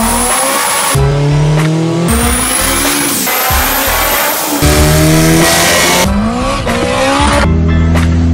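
Montage of short clips of tuned Honda Civic engines at full throttle, on a dyno and on the road, cut together every second or so. The engine pitch climbs in several clips, a few hold a steady high pitch, and a high thin whistle sits over some of them.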